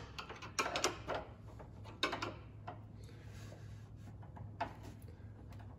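Phillips screwdriver turning the height-adjustment screw of an IKEA drawer-front fitting to raise a drawer front that sits too low: scattered small clicks and light scraping as the screw turns.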